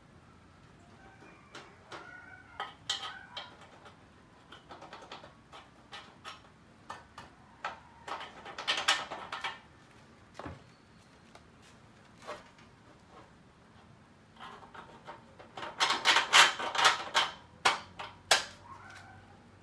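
Metal clinks, knocks and rattles of steel frame parts and bolts being handled as a crossbeam is fitted to a steel hydraulic press frame, with two dense runs of rapid clicking, about eight seconds in and again around sixteen to eighteen seconds, the second the loudest.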